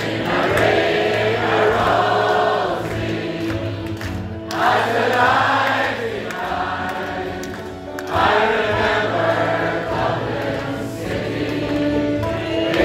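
Live Irish folk ballad with acoustic guitars and banjo, and many voices singing the chorus together in phrases that swell and break every few seconds: a hall audience singing along with the band.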